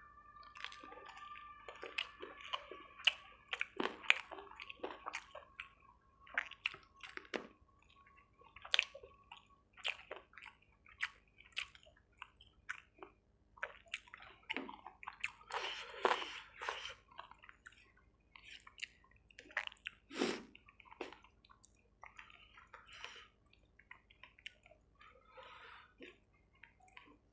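Close-up wet chewing and mouth sounds of a person eating chicken curry and rice: irregular squelches, lip smacks and small clicks. A faint steady tone sounds underneath for about the first ten seconds, then stops.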